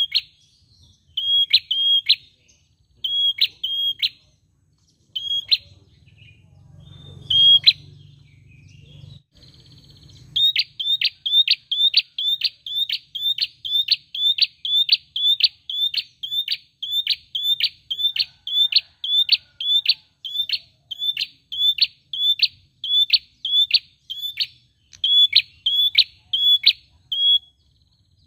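A caged prenjak, a small rufous-headed songbird, calling with sharp, high, repeated notes: at first in short bursts of two or three with pauses, then after a short break a fast, steady run of about two to three notes a second.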